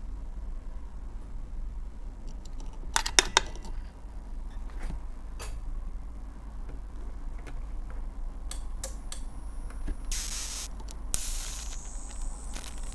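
High-voltage plasma arc running with a steady low hum, crackling in sharp clicks about 3 seconds in and now and then after, and hissing loudly from about 10 seconds in.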